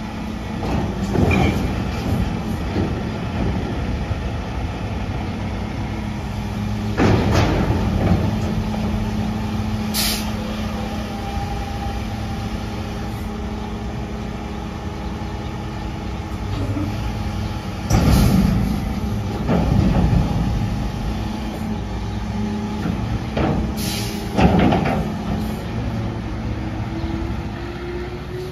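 Diesel engine of a Freightliner garbage truck with a Pak-Mor commercial side loader running steadily while the hydraulic arm works the dumpster, broken by several loud metal bangs and clanks as the container is dumped and set back down. The engine rises in pitch near the end as the truck moves off.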